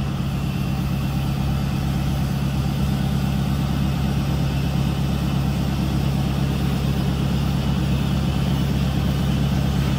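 Ford F-550's 6.7-litre Power Stroke turbo-diesel V8 idling steadily while it drives the Altec aerial unit's hydraulics as the boom is moved.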